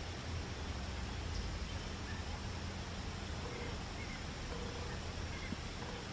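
Quiet outdoor ambience at dusk: a steady hiss and low rumble, with a cricket chirping faintly in short, scattered notes.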